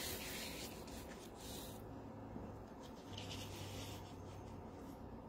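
Faint rubbing and rustling of sheets of patterned paper being handled and slid against each other.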